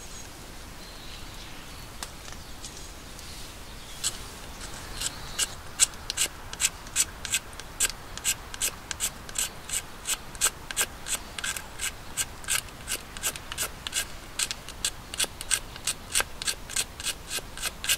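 Small knife blade scraping a stick of fatwood (resin-rich pine) in quick, even strokes, about two or three a second, shaving it into fine tinder. The strokes begin about four seconds in.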